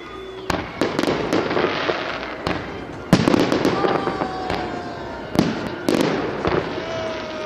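Fireworks display: a rapid series of sharp shell bursts and bangs over a steady crackling hiss, the loudest bang about three seconds in, with a few long, slowly falling whistles between them.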